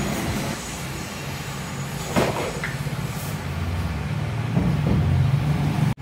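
Low rumble of a motor vehicle running, growing louder in the last couple of seconds, with a sharp clank about two seconds in.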